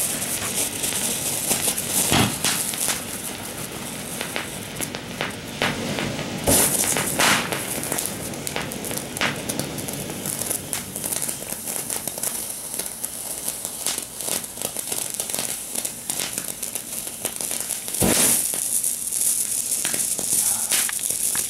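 Ground fountain firework burning: a steady hiss of spraying sparks with constant crackling, surging louder about 2 s and 6 s in and again near the end.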